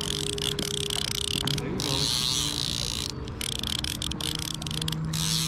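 Steady rush of river current, a bright hiss of moving water with brief dips, under a faint low hum.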